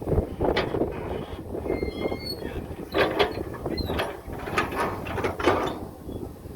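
Heavy machinery working, with an engine running under irregular metallic clanks and knocks, and a brief faint squeal about two seconds in.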